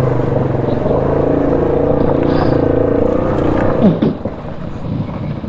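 ATV engine running at a steady throttle, then easing off about four seconds in, leaving a quieter, rougher rumble.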